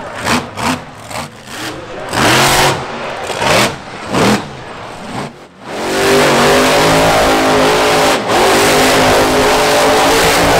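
Monster truck engine revved in short blips for the first few seconds, then held at high, steady revs from about six seconds in as the truck spins a donut.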